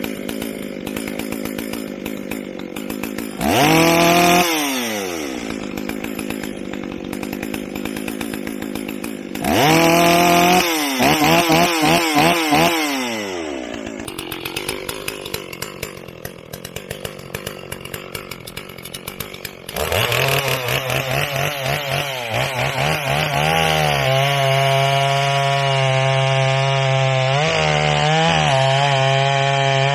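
Stihl 044 two-stroke chainsaw idling, revved up and let back down twice (the second time in several quick blips), then run up about two-thirds of the way through and held at high revs.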